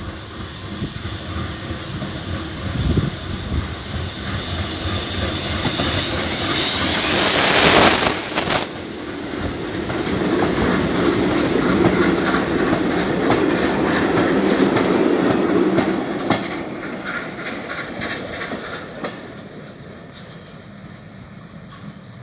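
A small ČSD class 310.0 'Kafemlejnek' steam tank locomotive approaching and passing close by with a loud hiss about seven to eight seconds in. Its passenger coaches then roll past with wheels clattering over the rail joints, and the sound fades as the train draws away.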